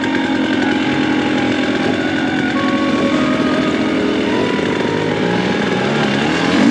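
Off-road dirt bike engine running hard at high, fairly steady revs.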